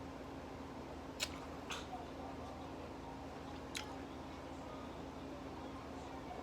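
Quiet room with a steady low hum, broken by three short, sharp clicks about a second, a second and a half, and nearly four seconds in.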